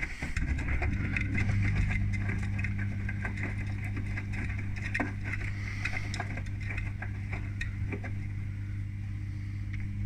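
Beko WTIK84121 washing machine's pump humming steadily, a low even drone, while water sloshes and splashes in the turning drum during the cottons 60 main wash.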